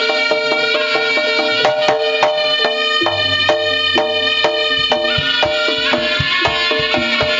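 Jaranan music for a Singo Barong performance, amplified through a sound system: drum strokes in a steady rhythm under a sustained melody line. The drumming gets denser and deeper about five seconds in.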